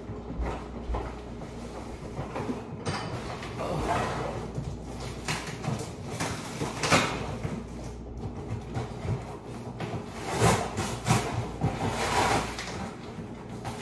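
Cardboard box being handled and worked on: irregular scraping and rustling of cardboard, loudest in a few bursts about four, seven and ten to twelve seconds in.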